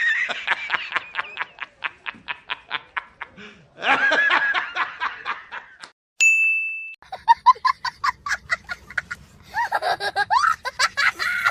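Laughter sound-effect clips in succession: a high-pitched laugh of quick rapid pulses that fades out, then a second laugh, a short beep about six seconds in, and a new clip of rapid laughter over a faint low hum.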